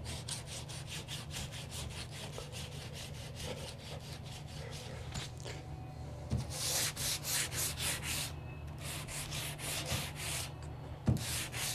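100-grit sandpaper rubbed by hand over a primed wooden door jamb in quick back-and-forth strokes, lightly smoothing out nicks and dents along the edges. The strokes get louder about halfway through, with a couple of short pauses.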